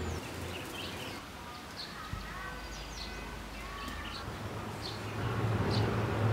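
Small birds chirping at intervals, short high calls scattered through, over a low steady hum.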